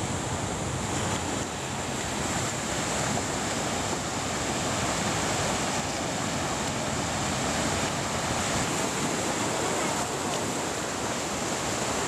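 Small waves breaking and washing up a sandy beach: a steady, unbroken rush of surf.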